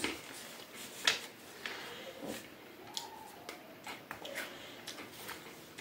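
Quiet chewing of Pocky chocolate-coated biscuit sticks, with a few short, sharp crunches spread through.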